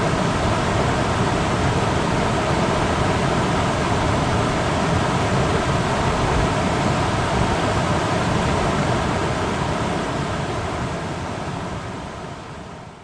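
Steady rush of a rain-swollen creek in flood, fading out near the end.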